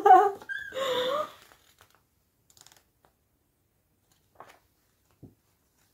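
A woman's voice trailing off over about the first second and a half, then near quiet broken by a few faint, short rustles of a paper picture book being handled.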